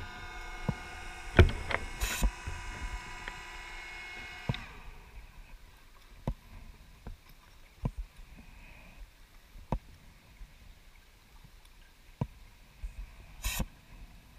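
Underwater scooter's electric motor whining steadily, cutting off about four and a half seconds in. After that come sharp isolated clicks every second or so, and a short hiss near the end.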